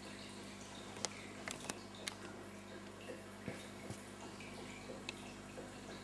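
Aquarium water trickling and dripping over the steady low hum of a filter pump, with several sharp ticks in the first two seconds.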